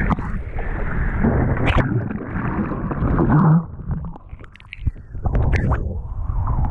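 Wind buffeting and seawater splashing around a GoPro in rough surf, with scattered sharp splashes; the sound drops much quieter for about a second near the middle, then the rushing comes back.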